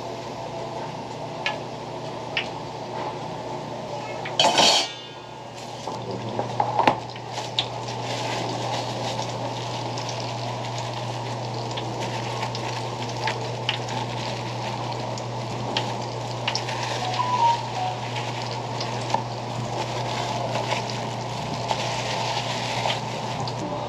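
Food stall kitchen sounds: a steady hum under a hiss of deep-frying oil, with scattered clicks and clinks of utensils and plastic containers. A short, sharp clatter comes about four and a half seconds in.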